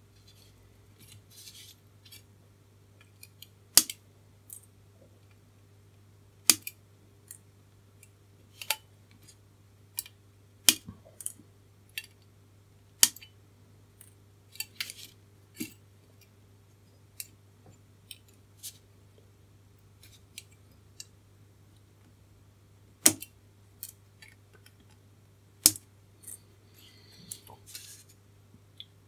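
Flush-cut side cutters snipping the excess wire leads off resistors on a through-hole circuit board: sharp single clicks at irregular intervals, usually a second or two apart.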